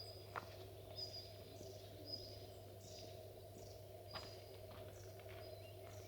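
Faint outdoor ambience: a bird gives short, high chirping calls about once a second over a steady low hum.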